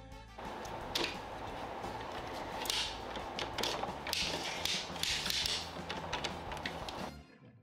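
Hard plastic toy parts being handled and fitted together: the gray elevator lift piece scraping and clicking against the playset's blue plastic frame, with several sharp clicks over a faint steady hum. The sound cuts off suddenly near the end.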